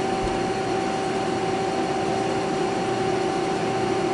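Haas CNC lathe running its program, spindle turning while the tool moves in slowly and is not yet cutting the aluminium stock: a steady hum with a steady whine.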